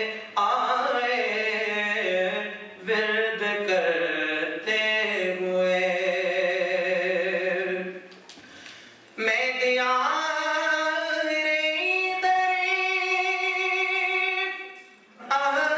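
A man's solo voice singing a slow, melodic chant in long, ornamented held notes that glide between pitches. He pauses for breath about eight seconds in and again shortly before the end.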